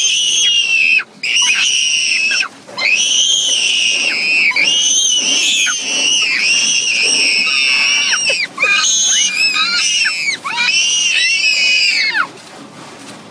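A toddler screaming in a series of long, high-pitched wails with short breaks for breath. The screams stop about twelve seconds in.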